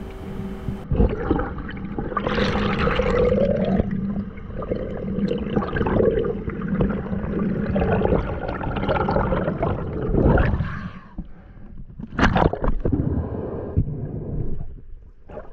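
Underwater water noise: rushing and gurgling as water moves past the camera housing during a freediver's ascent, swelling and fading unevenly, with a sharp brief burst about twelve seconds in.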